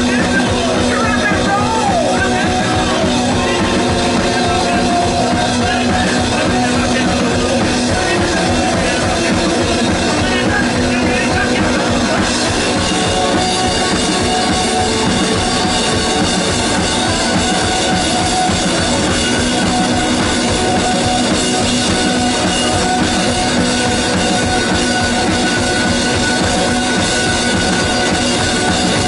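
Live rock'n'roll played loud on guitar and drum kit, with a sung vocal over the first few seconds and then instrumental playing.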